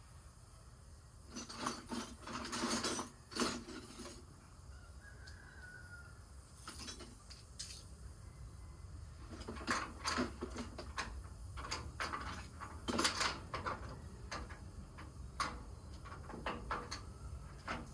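Metal hand tools clinking and rattling in short bursts: a wrench and socket working the bolts that hold a car's radiator.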